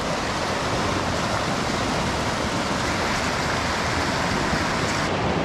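A river rushing, a steady, even noise of running water.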